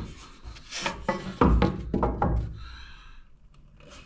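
A few knocks and short scrapes of wood being handled, a spirit level set against and moved along a timber door lining, mostly in the first three seconds.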